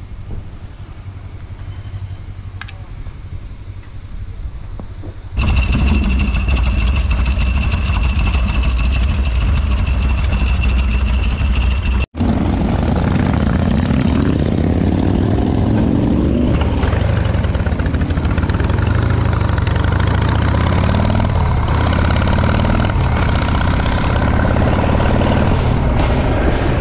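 Harley-Davidson Shovelhead V-twin motorcycle engine under way. It comes in suddenly and loud about five seconds in after a quieter stretch, cuts out for an instant near the middle, then its pitch rises and drops repeatedly as the bike accelerates and shifts through the gears.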